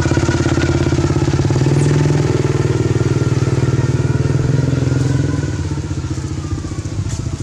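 A small engine running close by with a fast, even pulse, fading gradually after about five seconds.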